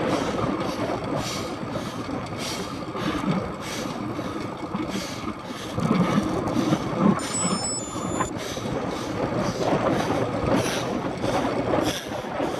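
Wind rushing over an action camera's microphone, together with track-bike tyres rolling on concrete, as the bike rides the velodrome banking at speed. The rush rises and falls roughly twice a second.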